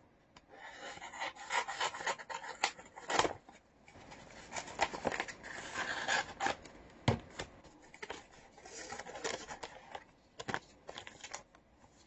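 Scissors cutting open a paper mailer envelope, with rustling and scraping of paper in irregular stretches and a few sharp clicks.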